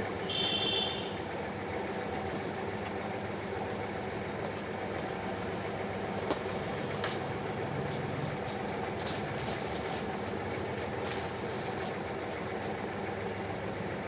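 Steady machine-like hum over a constant noisy background, with a short high-pitched tone about half a second in and a couple of faint clicks later.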